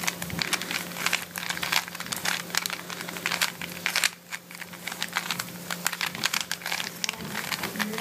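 A Rubik's Cube being scrambled by hand: rapid, irregular plastic clicking and clacking as its layers are twisted, several clicks a second, with a brief lull about four seconds in.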